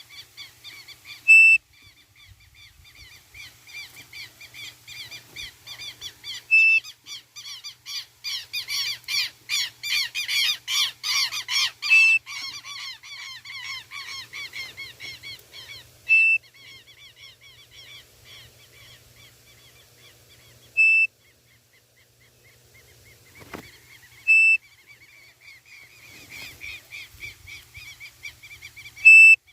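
A short, loud, whistled note repeats every four to five seconds, a codorniz call blown on a bird-call whistle (pio) to lure the bird. Underneath runs a busy chorus of small birds chirping, thickest about a third of the way in. There is a single soft knock near the end.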